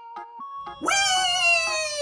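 Bouncy electronic dance music with a long, high vocal cry laid over it: about a second in, a voice swoops up sharply, holds, and slides down at the end.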